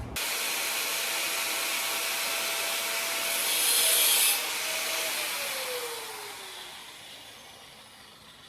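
Angle grinder with a cut-off wheel cutting through a metal rod: a loud hiss that starts suddenly and grows louder about four seconds in as the wheel bites through. The grinder is then switched off and winds down with a falling whine, fading away.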